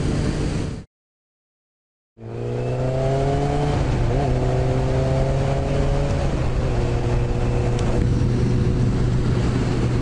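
Yamaha FZ1 inline-four motorcycle engine running while riding, with wind rushing past. The sound cuts out completely for about a second near the start. The engine's pitch then rises slowly as it picks up speed and holds steady for the rest.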